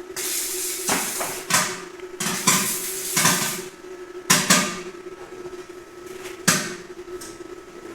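Pieces of steel clanking and banging together as they are handled, several irregular knocks with short metallic ringing, over a steady hum.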